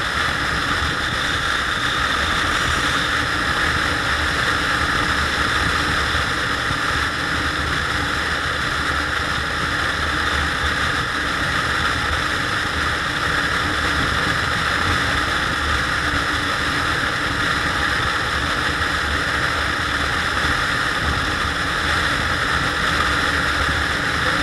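SYM Joymax GTS 250 Evo scooter's single-cylinder engine running at a steady cruise under a steady rush of wind noise on the microphone.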